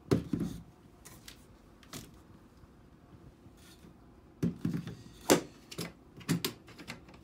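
Hard plastic carrying case of a Milwaukee M18 drain snake kit set down on a concrete floor with a thump. Then, about four and a half seconds in, a quick series of plastic clicks and knocks as the side latches of its lid are unsnapped.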